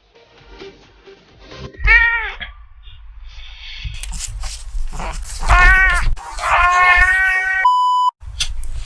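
A silver shaded British Shorthair cat meowing three times, the last call the longest, with scattered clicks around the calls. A short electronic beep sounds near the end.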